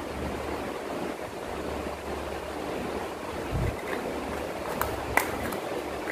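Steady background hiss, with a dull bump about three and a half seconds in and a few sharp clicks near the end from small plastic cosmetic jars being handled and opened.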